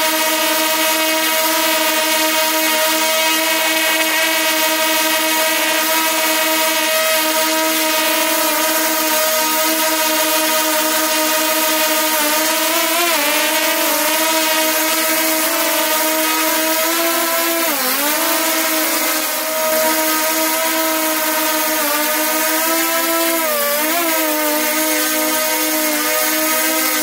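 DJI Mavic 2 Pro quadcopter's motors and propellers giving a steady high buzzing whine, heard up close from a camera mounted on the drone. The pitch dips and wavers briefly several times in the second half as the motors change speed while the drone manoeuvres.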